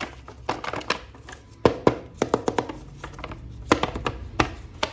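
Irregular sharp clicks and taps of a plastic action figure and its packaging being handled, the loudest knocks at about two seconds in and near the end, with music playing underneath.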